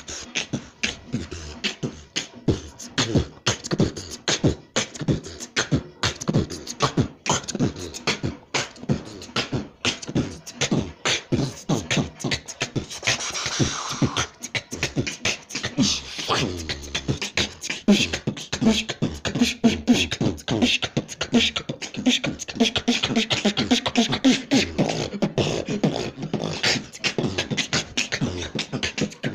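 A person beatboxing: fast mouth-made kick, snare and hi-hat sounds in a steady run of clicks, with a hissy stretch about halfway through and a hummed, pitched vocal bass woven in over the second half.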